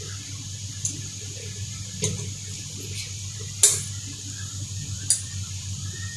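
Metal fork clinking against a ceramic plate while beef pieces are handled: four light clinks, the third the loudest, over a steady low hum and hiss.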